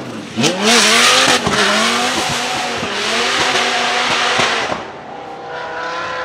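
Twin-turbocharged 8.3-litre V10 of a Dodge Viper SRT10 at high revs through a drift, with tyres squealing. The revs repeatedly dip and climb again, with sharp cracks. It drops away about five seconds in as the car goes on up the hill.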